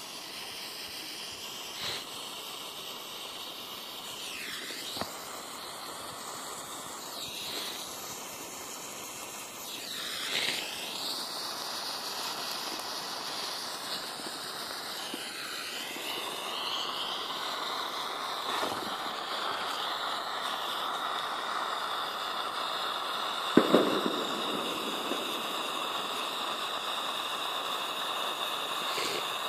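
Weco pyrotechnic lighter stick (Anzündlicht) burning with a steady hiss, which grows stronger and more even about halfway through, with a faint whistle-like tone in it. A single sharp knock sounds a few seconds before the end.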